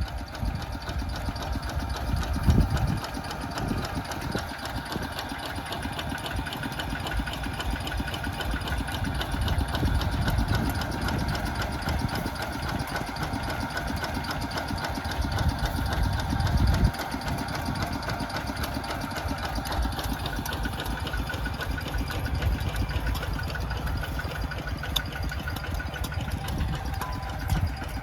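Mini tractor's engine running steadily with a fast, even beat, swelling louder in the low end twice: about two seconds in and around sixteen seconds.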